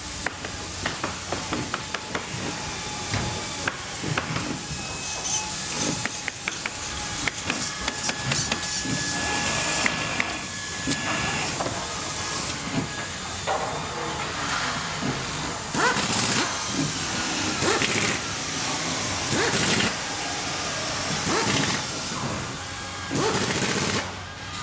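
Workbench assembly of an RC crawler chassis: parts clicking and knocking, with repeated short bursts of a cordless drill/driver whirring as screws are driven.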